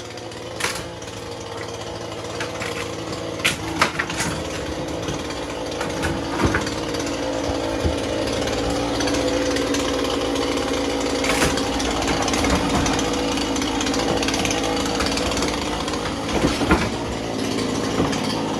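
Chainsaw running steadily and growing gradually louder, with scattered sharp knocks and clatter.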